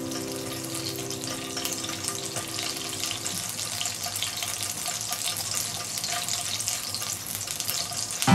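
Anchovy fillets sizzling in olive oil in a non-stick frying pan, a steady fine crackle.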